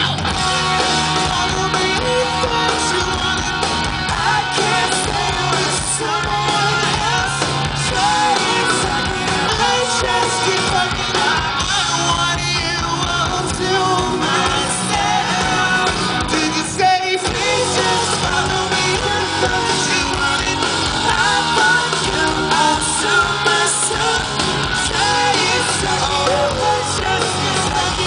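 Live rock band playing: a male lead singer singing over electric guitar, bass and drums, loud and a bit distorted from being recorded close to the stage. The music briefly drops out for a moment about seventeen seconds in.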